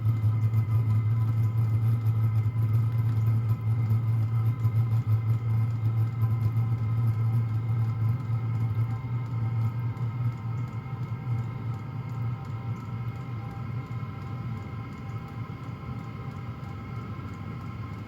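Hcalory portable diesel heater running just after ignition: a steady low hum with a few thin, high, steady whining tones on top, a little loud from vibration at first. It gradually gets quieter over the second half as the heater warms up.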